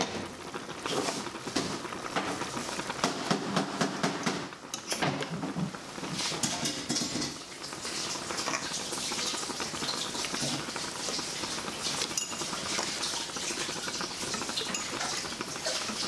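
Pots of soup bubbling at a steady boil, with a fork clinking and scraping against the pot as the boiled tomatoes and onions are fished out.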